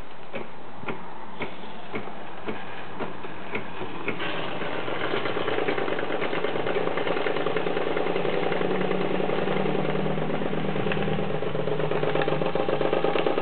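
Model twin-cylinder steam engine running on steam from an espresso maker: slow clicks about twice a second, then about four seconds in it picks up to a fast, steady chuffing run.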